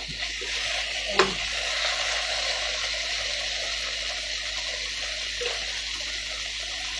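Kimchi and pork belly sizzling steadily in a hot nonstick wok, with a couple of knocks of the stirring spoon against the pan in the first second or so.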